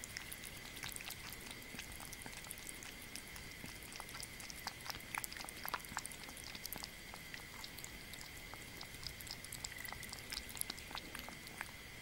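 Kitten lapping broth from a ceramic bowl close to the microphone: a quick, uneven run of small wet tongue clicks, over a steady high-pitched background whine.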